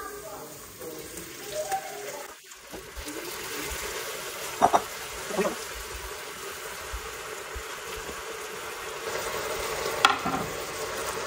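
Chopped vegetables and onions sizzling in hot oil in an Instant Pot on sauté while being stirred. The sizzle gets louder about three seconds in. A spoon knocks against the pot a few times, around five seconds in and again near the end.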